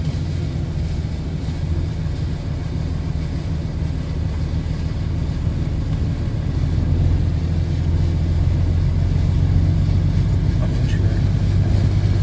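Motor vehicle engine running with a steady low drone as it drives through shallow seawater covering the road, growing a little louder about six seconds in.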